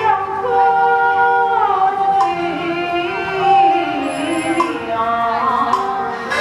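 Taiwanese opera (gezaixi) music: a long, drawn-out melodic line with sliding notes, broken by a few sharp percussion clicks.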